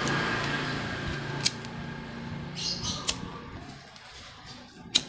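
Three sharp clicks of a pocket lighter being struck, a second and a half to two seconds apart, over a low background hum that fades out.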